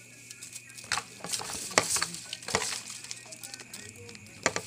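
Hands working seasoning into raw pork spareribs in a container: a few knocks and a rustling, scraping noise.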